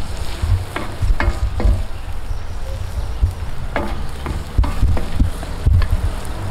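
Minced meat and chopped onion sizzling in a wide steel pan over a wood fire, stirred with a wooden spatula: several scrapes of wood on metal at irregular intervals, over a steady low rumble.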